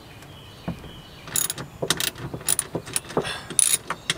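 Socket ratchet clicking in quick, irregular strokes as a rear-seat bolt is backed out of the car's body, the run of clicks starting about a second in.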